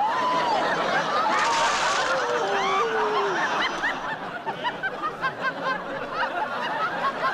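Studio audience laughing: many voices laughing together, with a few longer individual laughs in the first half.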